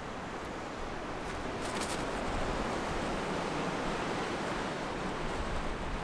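Wind blowing steadily over a wooded hilltop, a rushing noise with some low rumble that swells a little about two seconds in.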